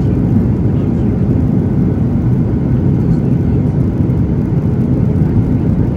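Steady low rumble of a Boeing 737's turbofan engines and the rush of air, heard from inside the passenger cabin during the descent to land.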